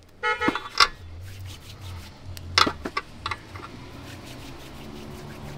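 A metal spoon scraping and clinking against a cooking pot of stew peas: a short squeak at the start, then a few sharp knocks over a low hum.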